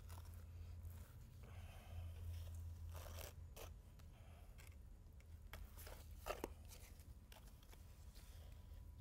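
Faint scraping and swishing of a small notch trowel spreading wet self-leveling urethane concrete, with scattered short clicks as the trowel moves, over a low steady hum.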